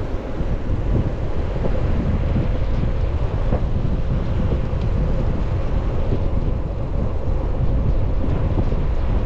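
Strong wind blowing across the microphone: a loud, steady low rumble that runs without a break.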